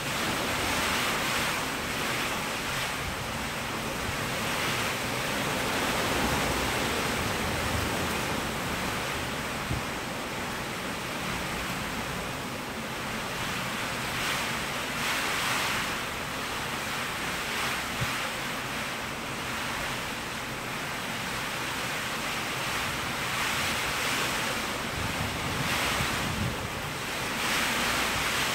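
Sustained storm-force wind of a tropical storm, around 80 km/h, rushing steadily with heavy rain. It swells into stronger gusts every several seconds, with wind buffeting the microphone.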